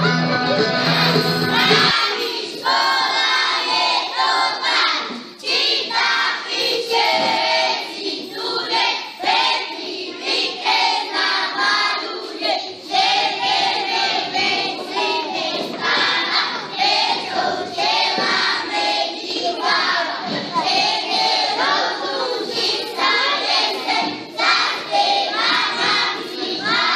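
Guitar dance music ends about two seconds in, then a group of young children sings together.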